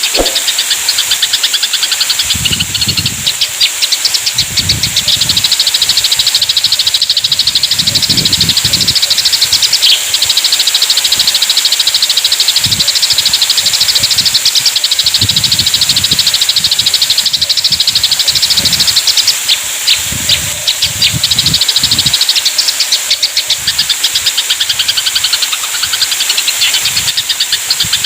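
Eurasian tree sparrows chattering in a fast, dense run of harsh high chirps, the agitated calls of sparrows fighting, over a steady high hiss and irregular low rumbles.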